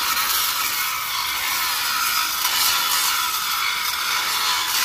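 Corded angle grinder with its disc grinding against a steel truck chassis frame rail: a steady, high grinding noise.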